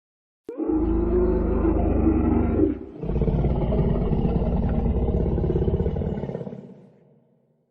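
Dinosaur roar sound effect: a click, then two long, deep roars, the second fading away.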